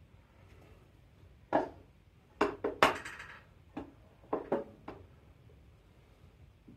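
Metal clinks and knocks as a turbocharger is handled and set against a bare engine: a scattered run of sharp taps from about a second and a half in to about five seconds, the loudest near three seconds with a short metallic ring.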